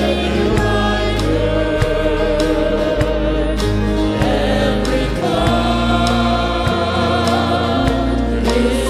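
Woman singing a gospel song into a handheld microphone over a live band, with steady drum-kit beats and held bass notes underneath.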